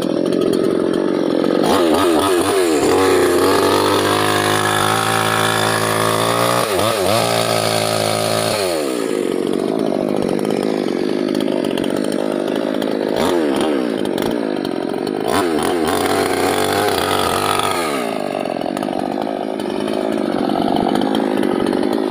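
Small Chinese-made, Stihl-branded two-stroke mini chainsaw running at high revs, its pitch sagging and recovering several times as the chain bogs and frees while cutting through teak wood.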